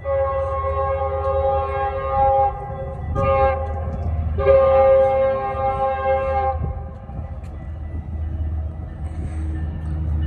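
Metrolink commuter train's horn sounding as it approaches: a long blast, a short one and another long one, the close of the long-long-short-long grade-crossing signal. A steady low rumble of the oncoming train runs underneath.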